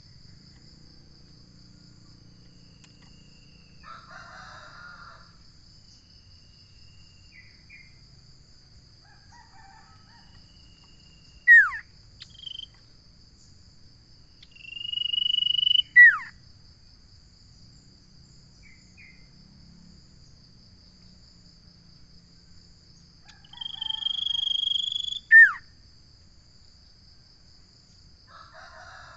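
Common iora giving two long, drawn-out whistles that each end in a sharp downward slur, with a single short down-slurred note before them, over a steady high insect trill.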